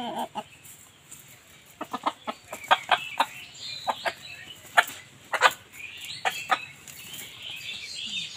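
Buff Brahma chicken clucking as it is handled and lifted out of a wire cage, with short sharp clicks and rattles from the cage.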